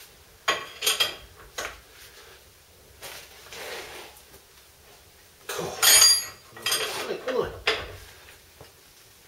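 Hammer and spanner clanking on steel as a seized suspension nut is knocked loose: three sharp knocks in the first two seconds, then a louder run of clanks about six seconds in.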